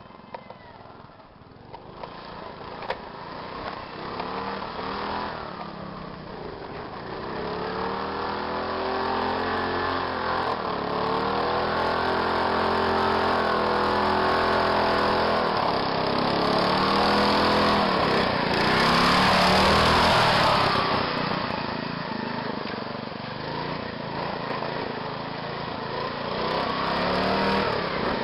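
Modified racing lawn mower engine revving up and down repeatedly as the mower drives through a mud pit, growing louder as it comes closer and staying loud near the end.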